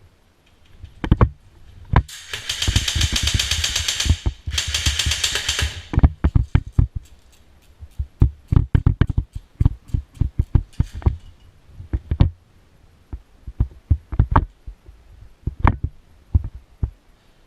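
Airsoft electric gun firing two long full-auto bursts, about two seconds each with a short break between, followed by scattered sharp clicks and knocks.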